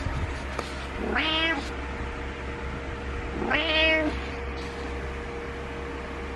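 Orange-and-white cat meowing twice, each a drawn-out call that rises and then falls in pitch. These are morning meows to get its owner awake. A steady low hum runs underneath.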